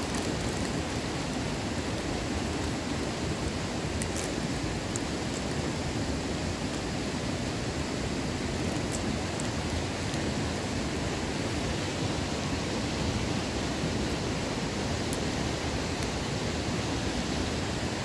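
Steady, even rushing noise, with a few faint short clicks over it.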